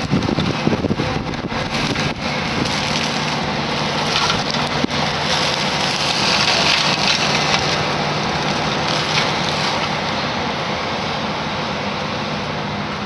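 Excavator-mounted brush mower grinding and splintering trees and shrubs, a continuous crackling shred over the excavator's steady engine under load.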